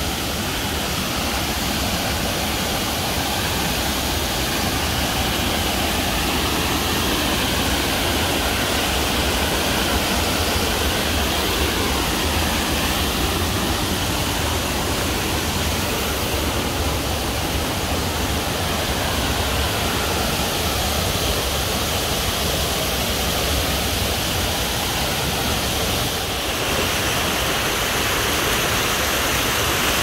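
Steady, even rush of a tall waterfall's water falling and splashing.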